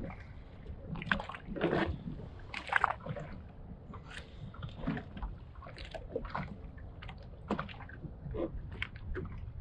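Small waves slapping and sloshing against the hull of a drifting Sea-Doo Fish Pro personal watercraft, in irregular splashes, over a steady low rumble of wind on the microphone.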